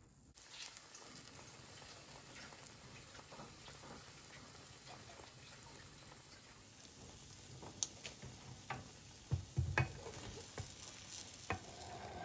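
Egg-coated bread slices frying in a nonstick pan, a steady sizzle with fine crackling that starts suddenly about half a second in. A few sharp clicks and knocks come in the second half.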